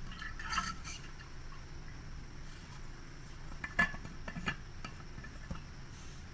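A few light clinks and taps, a small cluster about half a second in and a sharper one near four seconds, over faint steady room noise.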